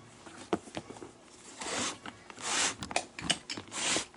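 Leather glove lace being pulled through the lacing holes of a baseball glove: three rasping swishes of lace drawn through the leather, with small clicks and taps of the lace and glove between them.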